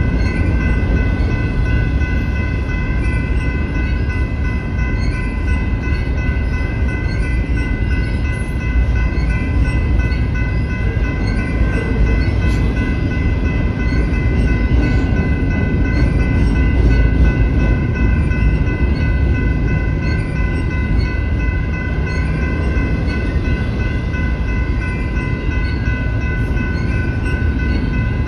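Double-stack intermodal freight train rolling steadily past, a continuous low rumble of wheels and cars on the rails. A steady high ringing tone sounds over it the whole time.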